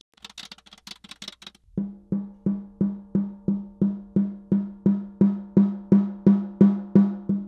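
Ludwig Supraphonic snare drum with its snare wires off, the top head tapped evenly about three times a second, each stroke ringing with one clear pitched tone and the strokes growing a little louder. The ring is being checked after the bottom (snare-side) head was slackened for more tone and sustain. Faint handling clicks come before the taps start.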